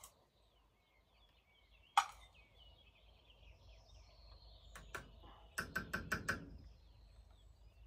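A sharp click about two seconds in, then a quick run of about six knocks near the end as a small container of ground coffee is tapped to shake out the last of it. Faint bird chirps sound in the background.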